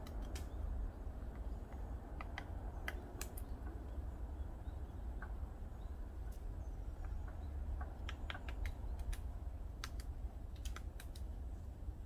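Woodpecker pecking at a tree: single sharp wooden taps at uneven intervals, some in short clusters, rather than a fast drumming roll.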